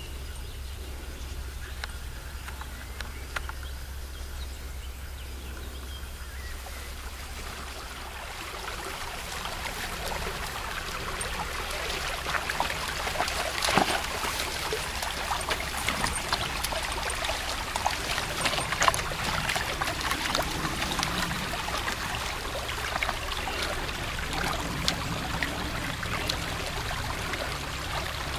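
Shallow stream trickling over stones, with a dog wading, splashing and drinking in it. The water and splashing grow louder about a third of the way in, with sharp splashes about halfway through; before that there is mainly a low rumble.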